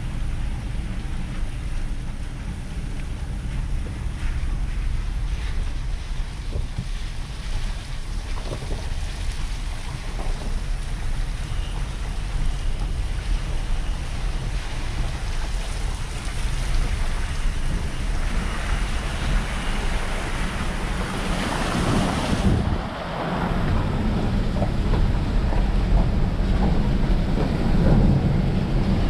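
Inside a vehicle's cab driving slowly through shallow floodwater on a dirt road: steady low rumble of engine and tyres, with a rushing of water thrown up by the tyres and splashing onto the windshield, louder in the second half.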